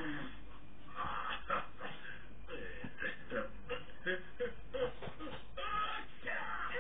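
Animated Mr. Bean making a string of short, irregular wordless vocal noises, played through a television speaker and recorded in the room.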